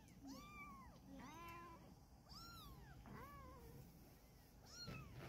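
Kitten mewing: about five short, high-pitched calls, each rising and falling in pitch, spaced about a second apart. The calls are faint.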